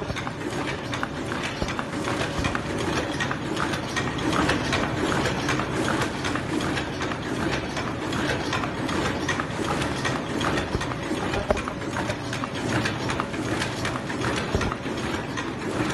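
Suramachine SM 85 ultrasonic paper cup machine running on test: a steady, dense mechanical clatter of rapid clicks.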